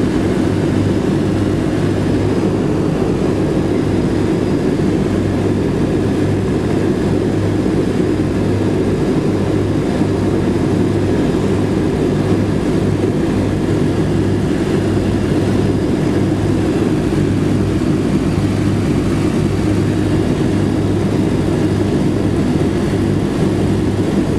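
The four Wright R-1820 Cyclone nine-cylinder radial engines of a B-17G bomber droning steadily on final approach to landing, heard inside the cockpit with a strong low hum and even loudness throughout.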